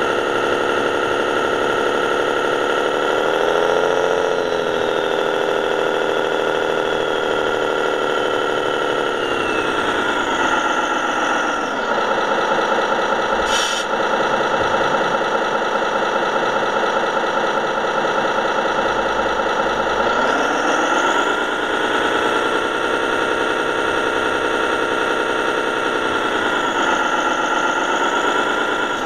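RC scale model truck's engine-sound module playing a diesel engine through its small speaker, running steadily. The pitch rises twice with the throttle and falls back each time, with a short click about halfway through.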